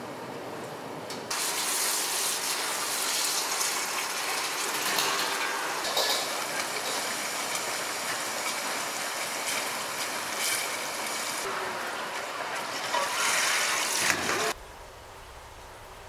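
Tap water gushing from a faucet into a steel bowl of blanched pork belly cubes, rinsing them clean after blanching. The steady splashing starts about a second in and stops abruptly near the end.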